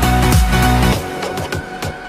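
Electronic dance music with a heavy bass beat; about halfway through the bass drops out, leaving lighter percussion.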